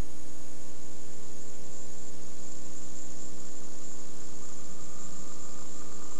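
Steady electrical mains hum with a stack of buzzing overtones, a thin high whine and hiss: the line noise on the audio track of an old analog videotape recording, unchanging throughout.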